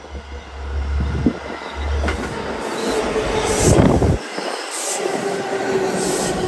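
A New York City Subway R142 train passes close by, getting louder as it comes up. Its wheels clack over the rail joints at a slow, repeating beat, under a steady whine.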